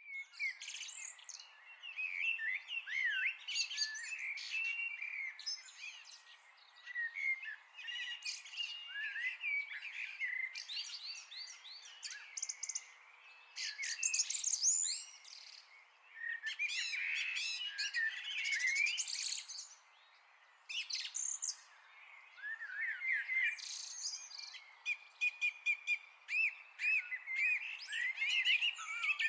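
Several birds chirping and singing, many short overlapping calls coming in bursts with brief lulls between them.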